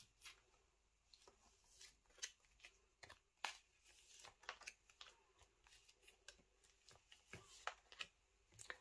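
Faint rustling of plastic and light clicks as photocards in plastic sleeves are handled and slid into a binder's pocket page.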